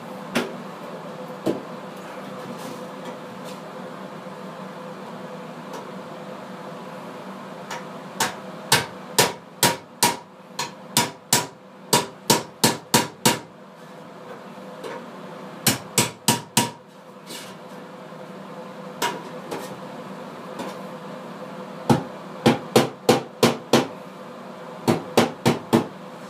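Hammer driving a chisel to knock a hole in ductwork: sharp blows in quick runs of several, about two a second, with pauses between the runs, over a steady low hum.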